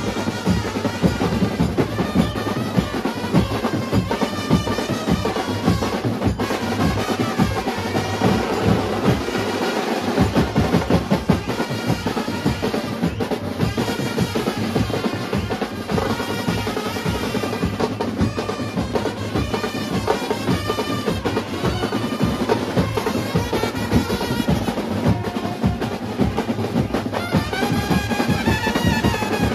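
Mumbai brass band playing a lively procession tune: trumpets and other brass carry the melody over a dense, driving beat of bass drums and other drums. The low drum beat drops out briefly about ten seconds in, then comes back.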